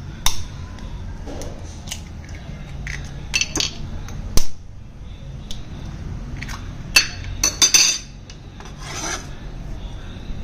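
Eggs being cracked into a ceramic bowl: several sharp taps and crackles of shell, the loudest about four seconds in and a quick cluster around seven to eight seconds. Near the end there is a brief scrape as chopped spring onion is slid off a metal cleaver into the bowl.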